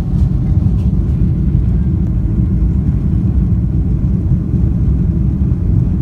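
Boeing 747-400 airliner heard from inside the cabin while rolling on the ground: a steady low rumble of engines and wheels through the fuselage.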